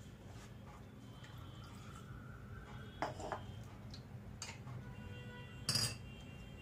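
Blended guava milkshake pouring and dripping through a steel sieve, with a few sharp clinks of a spoon and bowl against the metal sieve, the loudest just before the end.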